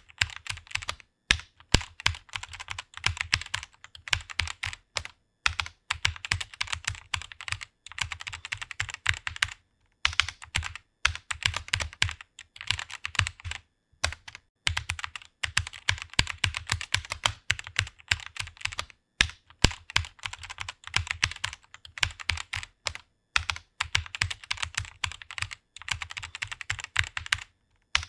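Fast typing on a computer keyboard: quick runs of keystroke clicks broken by brief pauses every few seconds.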